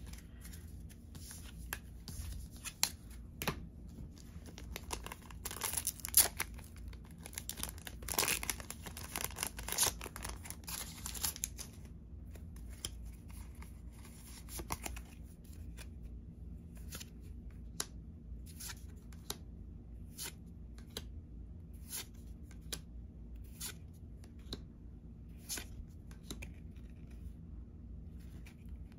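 A foil trading-card booster pack torn open and crinkled in the hands for several seconds. Then the cards are slid off the stack one at a time, a short soft flick every second or so.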